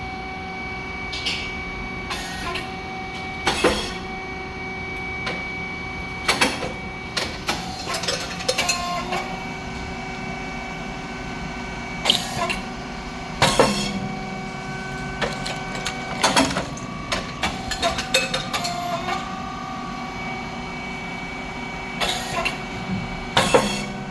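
Rice cake popping machine running: a steady hum from its hydraulic pump and motor, broken by a loud pop about every ten seconds, three times, as each batch of rice chips is puffed. Smaller clanks and rattles of the machine's mechanism come between the pops.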